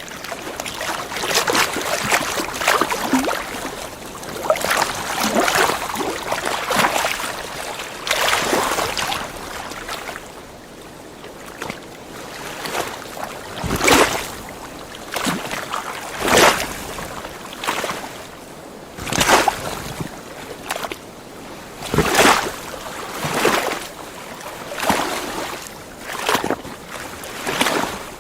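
Small lake waves lapping and splashing, with a busy run of overlapping splashes at first, then separate splashes every two to three seconds.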